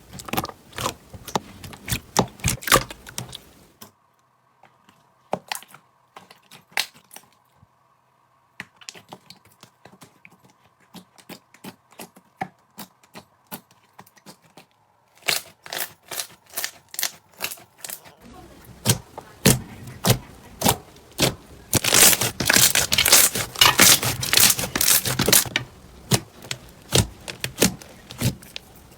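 Crunchy slime being squeezed and pressed by hand, giving rapid crackling and popping clicks. The clicks thin out to a few quiet ones in the middle, then come back thicker and louder near the end.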